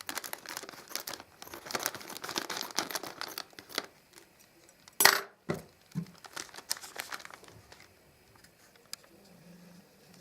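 Plastic postal packet being opened: dense crinkling and tearing of the wrapping, with one sharp, loud rip about halfway through, then a few lighter crinkles as it quiets.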